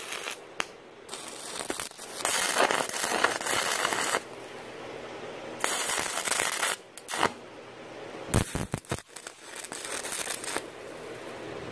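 Electric arc welding on steel: several separate welds, each a burst of crackling hiss lasting up to about two seconds, with short gaps between them. These are tack welds fixing flat-bar supports to a steel frame.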